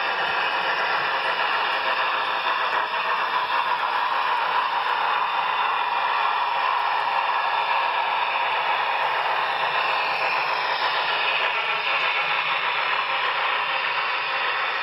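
HO scale Walthers Proto Union Pacific Heritage Fleet passenger cars rolling along model railway track, their wheels making a steady rushing noise on the rails.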